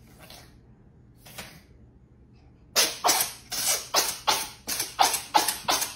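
A cat's coughing fit, one of the recurring coughing fits it suffers from: a fast, even run of short coughs, about three a second, starting about halfway through.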